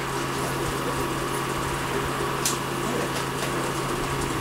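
Steady mechanical hum with one faint high click about halfway through.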